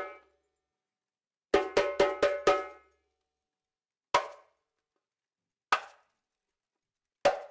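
Djembe struck by hand: a quick run of five ringing strokes, then three single strokes about a second and a half apart. The single strokes are shorter, with a higher, drier sound than the run.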